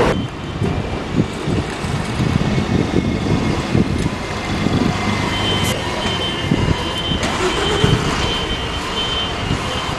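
Double-decker bus driving past with its engine and tyres rumbling in the road traffic, with gusts of wind knocking on the microphone. From about halfway through, a high, repeated electronic beeping sounds over it.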